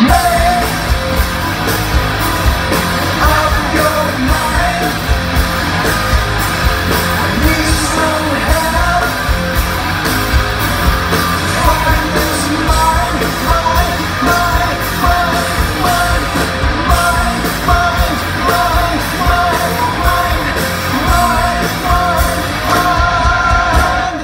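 Live rock band playing loudly: distorted electric guitars, bass and a steady drum beat, with a male lead vocal sung over the top.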